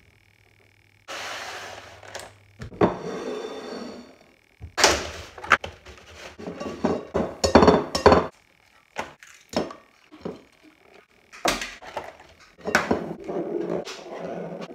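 A run of knocks, taps and cracks as brown eggs are taken from a plastic carton and cracked into a bowl, their shells breaking, with rustling handling noise in between.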